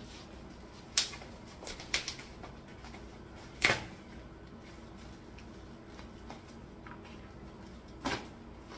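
Plastic mailer bag being handled and slit open with a knife: a handful of short, sharp crinkles and crackles, the loudest a little under four seconds in.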